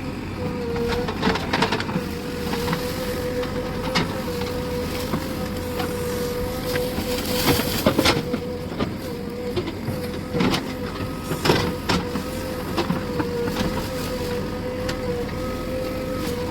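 JCB backhoe loader at work: a steady machine whine that wavers slightly in pitch, over the engine's running noise, with scattered knocks and clatter.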